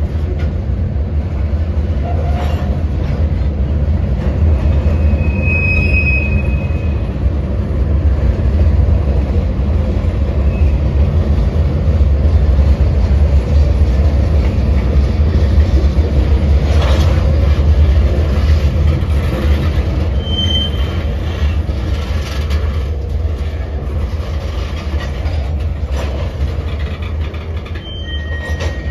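Freight cars (covered hoppers, then tank cars) rolling past on the rails: a steady low rumble of wheels on track that swells through the middle and eases toward the end. Short wheel squeals a few times and a couple of sharp knocks.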